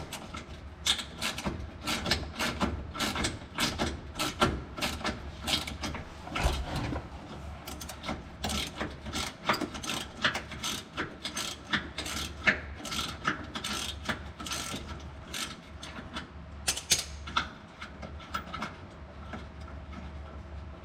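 Hand ratchet clicking in quick, uneven runs as a long bolt is backed out of the underbody cover.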